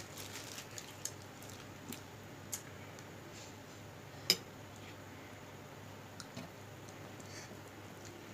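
Faint eating sounds: soft squishy chewing and a few small utensil clicks on a dish, with one sharper click about four seconds in.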